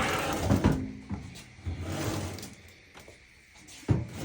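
A Samsung dryer's sheet-metal panel being slid aside, scraping over the cabinet twice, then a single knock near the end.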